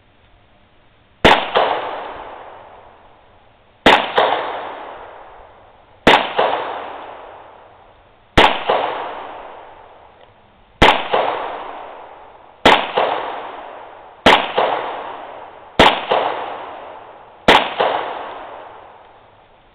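Beretta Neos .22 LR target pistol firing nine single, deliberate shots, spaced about two seconds apart. Each shot is a loud, sharp crack followed by a long echoing tail.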